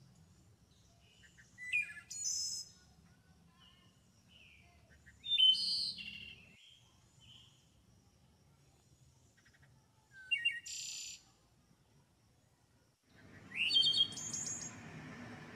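Small birds chirping: short, high, quickly sweeping calls in four bursts a few seconds apart. Near the end a steady background hiss comes in.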